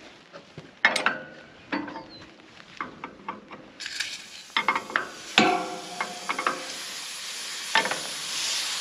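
Steel wrench clanking and clicking against the brass and steel fittings of a propane railcar's liquid hose coupling as it is loosened. About four seconds in, a steady hiss starts as pressurised propane vents from the loosened coupling.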